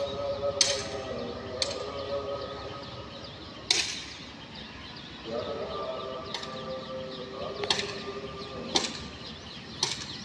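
Train passing close by on the line: a steady electrical hum that fades for a few seconds in the middle, with sharp irregular clacks of wheels striking rail joints.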